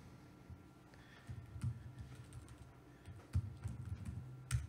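Computer keyboard being typed on: a few scattered key presses, the sharpest near the end, as a command is typed into a terminal.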